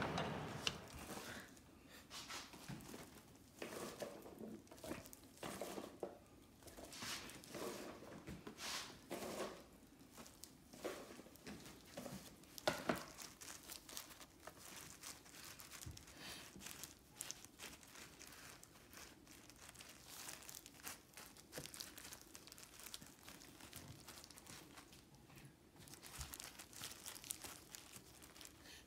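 Faint, irregular rustling and crinkling of paper towels and a disposable plastic glove as hands spread wet crinkle-cut potato fries out to dry before frying.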